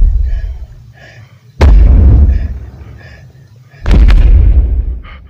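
Three loud, deep booms, each dying away over about a second: a horror sound effect of heavy blows. A faint rhythmic rasping breath runs beneath them.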